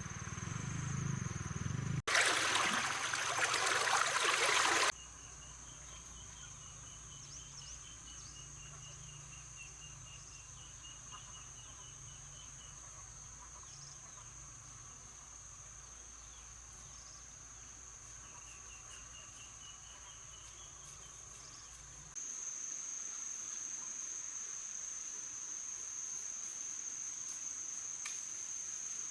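Insects chirring steadily at a high pitch. About two seconds in, a loud burst of noise runs for about three seconds and then stops abruptly.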